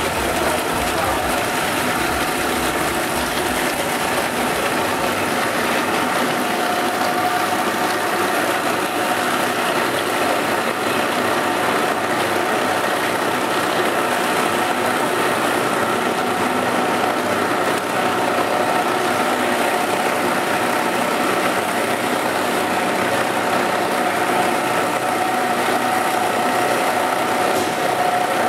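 A 50-litre bowl cutter running steadily, its high-speed knives chopping chicken meat in the turning bowl. A steady whine sits over the machine noise.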